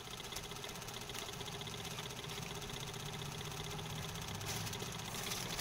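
A small motor running steadily, with a fast, even pulsing hum.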